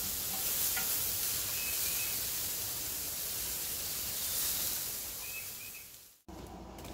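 Thin pork chops sizzling on a grill, a steady hiss, with a few short bird chirps over it. It fades out near the end.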